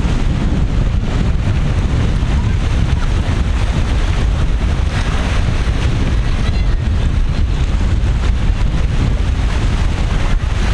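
Heavy wind buffeting the microphone with a steady low rumble, over the wash of rough sea surf.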